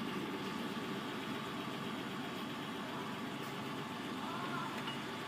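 A car engine idling steadily at low level.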